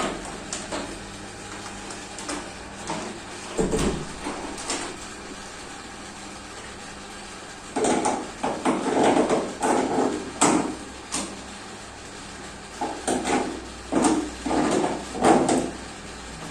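Irregular wooden knocking and clattering: scattered knocks, then two busy bursts of rattling about eight and thirteen seconds in.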